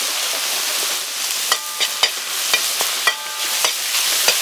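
Fried rice ingredients sizzling steadily in a hot pan, with a utensil knocking against the pan about seven times; several knocks ring briefly.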